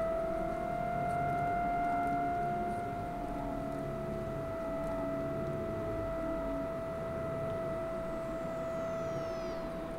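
Eerie soundtrack drone: one steady high tone held throughout, with a slow line of lower notes beneath it. Near the end, faint high tones sweep downward.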